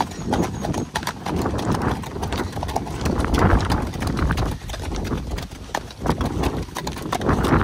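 Horse's hooves striking a dirt track in quick, uneven succession as the horse is ridden along, over a low rumble of wind on the microphone.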